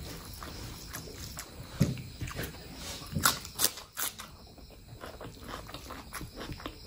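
Close-miked chewing and wet mouth sounds of eating mutton fat curry with rice, with a few sharp loud clicks around the middle.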